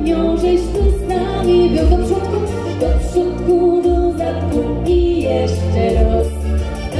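Two women singing a Silesian-dialect pop song together into microphones over backing music with a steady beat, heard through the stage sound system.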